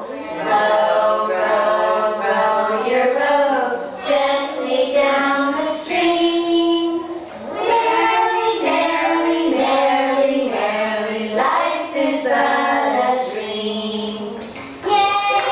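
Voices singing a simple children's song with held notes, played back from a video over a room's loudspeakers.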